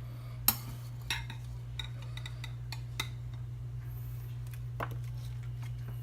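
A spoon knocking against a bowl a handful of times as stuffing is spooned out, with short separate clinks and the sharpest one about half a second in.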